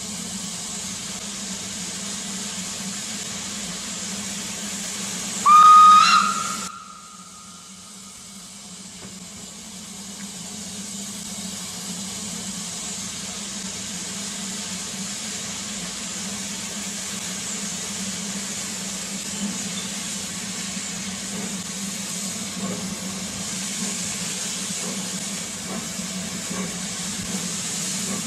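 Steam whistle of Isle of Man Railway No. 8 Fenella, a Beyer Peacock 2-4-0 tank locomotive: one clear note, rising slightly in pitch and lasting about a second, sounds about six seconds in and is the loudest thing. Around it runs a steady hiss of steam escaping from the locomotive's open cylinder drain cocks as it starts away. The sound drops off abruptly just after the whistle, then the hiss builds back up.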